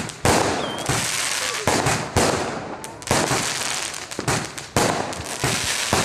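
Aerial fireworks bursting overhead: an irregular run of sharp bangs, about two a second, each trailed by a crackling hiss of falling stars.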